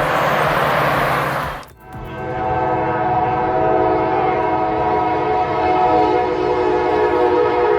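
A rushing noise that cuts off about two seconds in, then a train horn sounding one long, steady multi-note chord.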